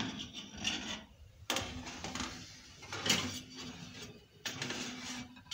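Metal pizza pan being slid into an oven and onto its wire rack: a few sudden scrapes and knocks of metal on metal.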